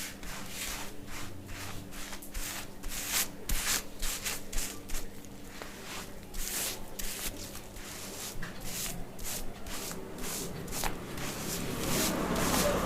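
A barber's fingers scrubbing and scratching the scalp through shampooed hair during a head massage, in quick rhythmic rubbing strokes, a few a second.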